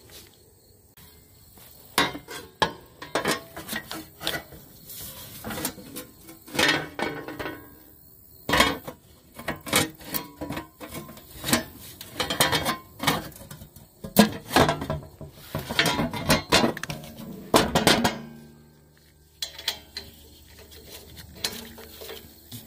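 Irregular clinks and knocks of hard objects being handled, several a second at times, which stop about 18 seconds in, leaving a faint low hum.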